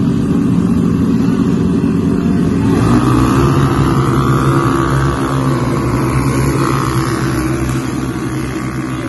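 A pack of small off-road race buggies' engines revving at the start line, then accelerating away together about three seconds in, their engine notes rising and then slowly fading as the buggies pull away.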